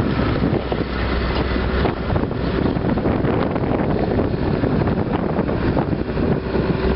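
Samsung SE 280 NLC crawler excavator's diesel engine running while the machine turns on its steel tracks in snow, with irregular track clatter. A steady low engine hum is plainest at the start and again near the end, and wind buffets the microphone.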